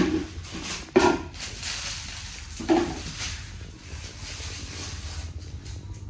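Two sharp knocks, about a second in and near three seconds, over light rustling, as a baby monkey scrambles up onto a shelf unit.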